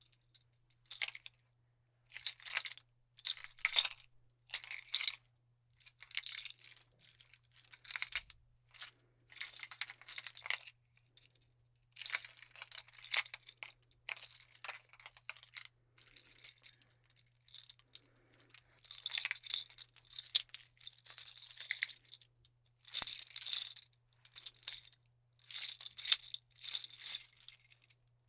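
A bunch of keys jingling as they are shaken and handled in the hand, in irregular bursts of bright metallic clinks with short pauses between them.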